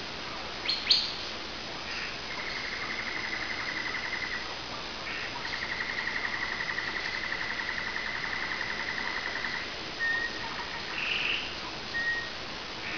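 Domestic canary singing: two sharp chirps about a second in, then two long rapid rolling trills, the second lasting about four seconds, followed by a few short whistled notes near the end.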